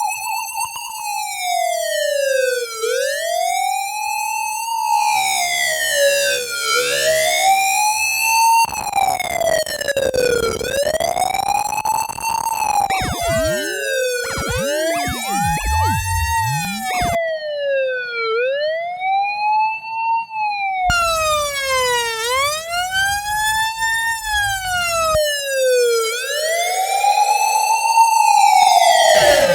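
Ambulance siren wailing: a tone that sweeps up and down, about once every three seconds, in a continuous cycle. Several siren recordings follow one another, and other sweeping tones overlap briefly in the middle.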